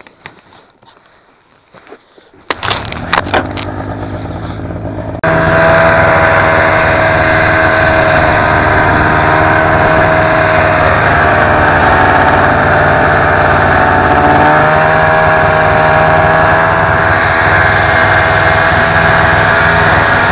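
A snowmobile engine starts up about two and a half seconds in. About five seconds in it jumps much louder and runs at a steady, even pitch while towing a loaded sled along the trail.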